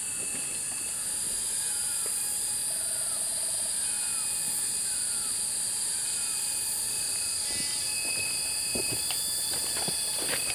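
Forest ambience: a steady high insect drone, with a bird giving a short falling call about twice a second for several seconds. A few knocks come near the end.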